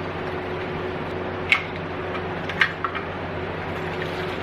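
Two sharp knocks about a second apart, with a smaller one just after, as salvaged pinball machine parts are handled, over a steady low hum.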